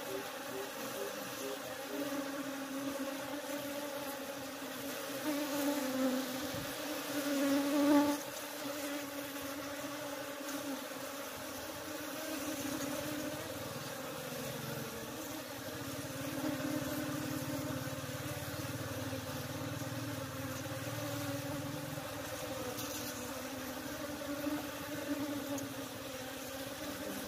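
Many honeybees buzzing at a hive entrance as they fight off attacking ants: a steady, wavering hum of wings that swells briefly about six to eight seconds in.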